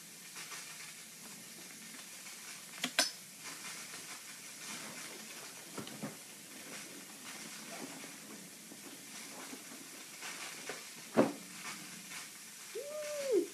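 Radiator hissing steadily, with two sharp knocks about three seconds in and again near the end.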